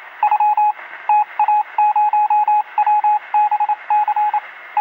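Electronic beeping: a single tone keyed on and off in rapid short and long pulses over a steady hiss, like Morse code heard through a radio.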